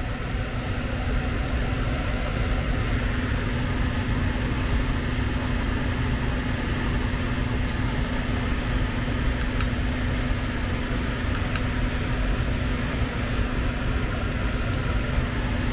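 Electric heat-strip air handler running: the blower moves air with a steady rushing sound over a constant hum, and a few faint ticks are heard.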